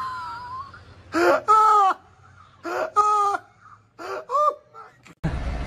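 A person shrieking with laughter in three high-pitched, gasping bursts, each a short burst that ends in a held note.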